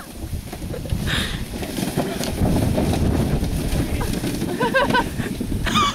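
Low, rough rumbling noise throughout, with short high-pitched wavering shouts from people about a second in, again near the five-second mark, and just before the end.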